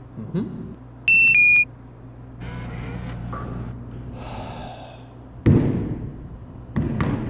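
Snack vending machine's keypad beeping twice, a higher short tone then a slightly lower one, then a hand slapping and banging the machine's glass front, one loud thud followed by two more near the end.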